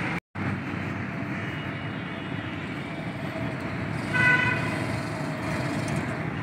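Steady city traffic noise, with a short vehicle horn toot of about half a second around four seconds in.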